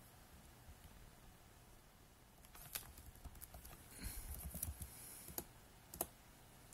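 Faint typing on a computer keyboard: a few scattered keystrokes, then a quicker run of keys about four seconds in, and a couple of single clicks near the end.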